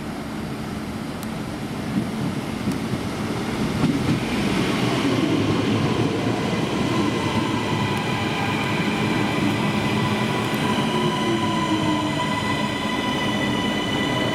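CP series 3400 electric multiple unit pulling in along the platform. Its running rumble grows louder as it draws alongside. Several steady high whining tones set in about a third of the way through, and a lower tone falls in pitch later on.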